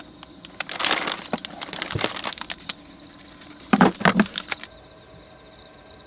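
Breakfast things being taken out of a storage box and set down on a table: plastic packaging rustles and crinkles with small clicks, then two loud knocks close together about four seconds in as items land on the tabletop.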